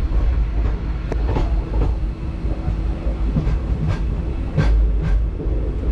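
A moving train heard from inside the carriage: a steady low rumble with irregular clacks of the wheels over rail joints.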